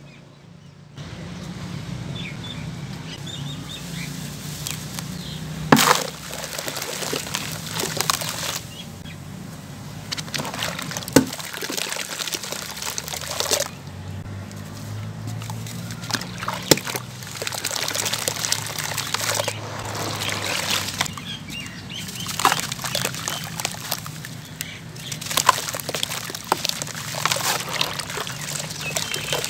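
Sand-cement lumps crushed and crumbled by hand in a tub of foamy water: gritty crunching, squelching and sloshing, with a few sudden loud impacts as lumps break or drop into the water.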